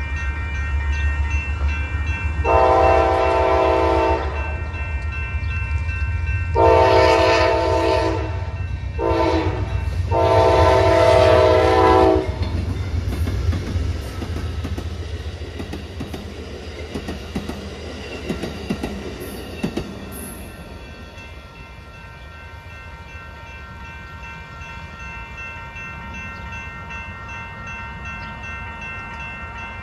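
Amtrak GE P42DC diesel locomotive sounding its Nathan K5LA multi-chime horn for a grade crossing in the long-long-short-long pattern over the steady ringing of the crossing bell. The deep diesel engine rumble fades after the horn stops as the locomotives pass, leaving the quieter running of the passenger cars going away.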